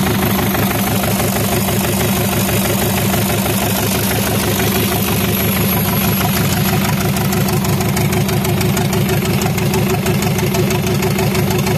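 Freshly rebuilt engine of a Bolgar TK-80 tractor idling steadily with an even, rapid firing beat. It runs smoothly.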